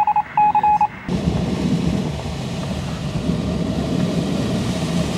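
Two short electronic beeps, then the motor glider's two-stroke engine running steadily, its pylon-mounted propeller turning, as a constant low drone.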